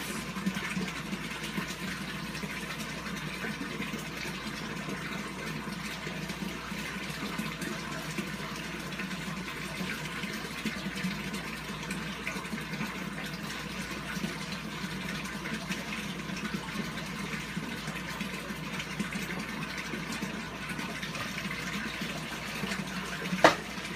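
Steady rushing of running water in the background, even throughout, with one sharp click near the end.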